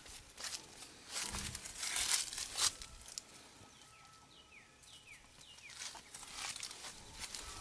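Close rustling and crinkling handling noise in bursts, loudest between one and three seconds in, then quieter, with a short run of faint high falling chirps in the middle and more rustling near the end.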